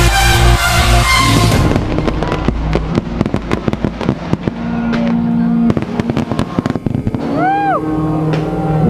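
Electronic dance music with a steady beat for the first second or two, then a fireworks display: a rapid string of sharp bangs and crackles lasting several seconds, with music still playing under it.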